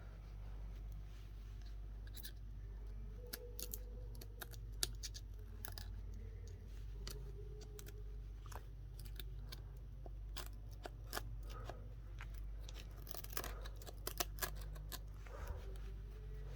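Irregular sharp clicks and small taps of hand tools working on a phone, over a steady low hum.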